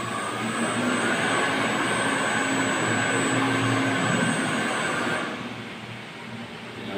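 Steady machine running noise of a pump-room booster pump set, with a whine that rises in pitch over the first few seconds. The noise drops away fairly suddenly about five seconds in.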